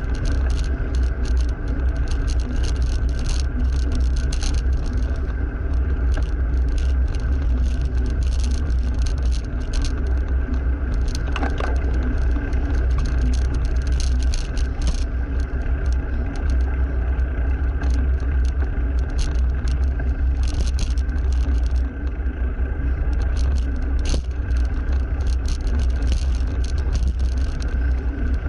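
Wind rumble on the microphone of a camera riding on a moving bicycle, with road noise, steady hum and frequent rattling clicks from the bike going over the road surface, and motor traffic running alongside.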